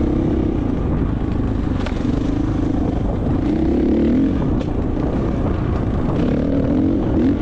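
A vehicle ridden along a trail: a motor tone wavers up and down in pitch over steady rumble and wind, with a few sharp clicks.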